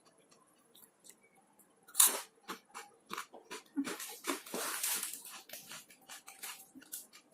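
Close-up crunching and chewing of a round Japanese rice cracker: a run of sharp crisp cracks, a loud one about two seconds in, then a dense stretch of crunching a little after four seconds that thins out near the end.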